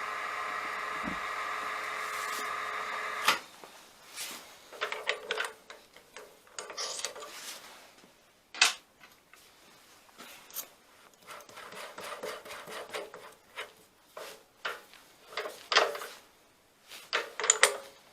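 A milling machine runs with a steady whine and is switched off about three seconds in. After that come irregular metallic clicks, knocks and rubbing as tooling is handled at the machine.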